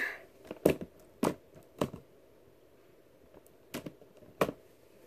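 Yellow slime with Orbeez water beads being pressed and handled by fingers, giving a handful of short, sticky clicks and pops spaced apart, with quiet between them.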